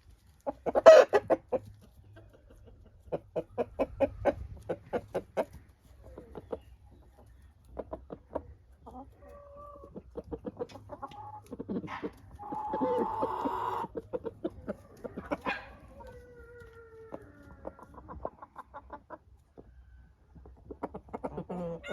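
Domestic chickens clucking in quick runs of short notes, with a longer, fuller call from one bird about halfway through.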